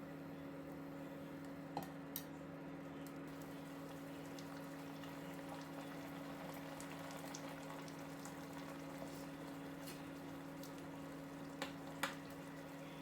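Chicken cooking in a pan, bubbling and sizzling steadily over a low steady hum. Two sharp clicks come about two seconds in and two more near the end.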